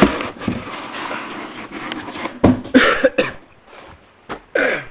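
Rustling and handling of a box and its packaging as a subwoofer is unpacked, broken by short coughs or throat sounds about two and a half seconds in and again near the end.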